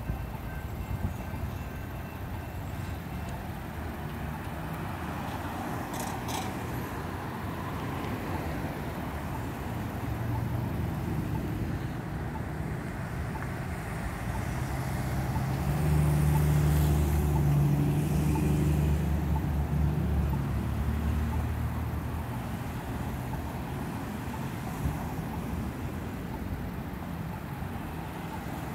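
Road traffic with cars driving past and pulling away. From about a quarter to two-thirds of the way through, a vehicle's engine runs close by with a low steady hum and grows louder before fading.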